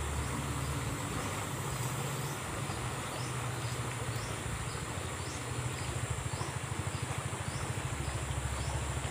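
An insect chirping in short calls at an even pace, under a second apart, over a steady low hum from vehicle traffic.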